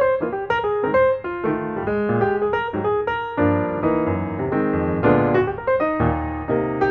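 Background piano music with a steady run of notes over lower chords.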